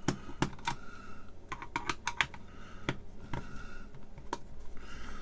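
Irregular light clicks and rattles of hard plastic being handled: the casing of a Hakko FR-300 desoldering gun worked by hand and turned over on the bench, in about a dozen uneven clicks.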